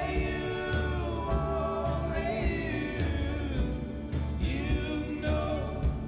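Background music: a song with sung vocals holding and gliding between notes over a steady beat.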